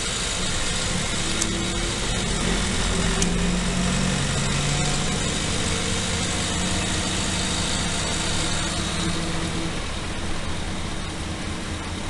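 City bus engine running, heard from inside the passenger cabin as a steady low drone, with a few hum tones that shift slightly in pitch.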